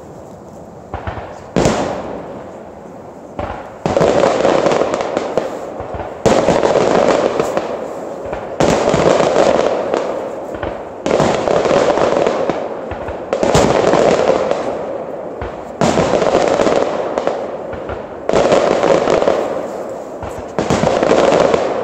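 Aerial firework shells bursting in a steady series: a few smaller pops at first, then from about four seconds in a sharp bang roughly every two and a half seconds, each followed by a fading tail.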